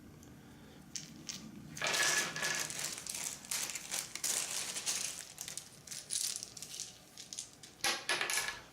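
Small wooden board-game pieces rattling in a crinkling plastic bag as it is handled and opened. A couple of clicks come first, then a dense, irregular crackle until just before the end.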